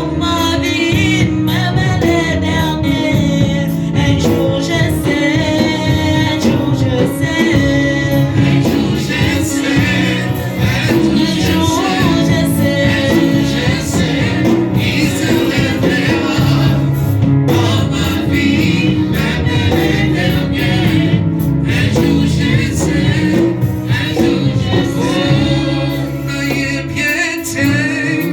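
Gospel worship music: singers with a band, sung melody over a steady bass line.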